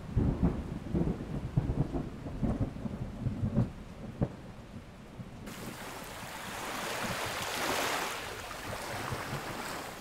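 Thunder rolling in irregular low rumbles for the first four seconds or so. About five and a half seconds in, a rushing hiss cuts in abruptly, swells a couple of seconds later, then eases.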